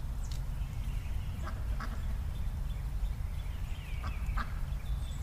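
Ducks quacking a few times in the background over a steady low rumble of wind on the microphone, with a few light clicks from roots and soil being handled.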